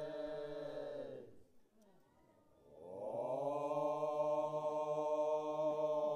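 Background music: a deep chanted drone on one steady note, which fades out about a second in, and a second long held note that swells in about three seconds in.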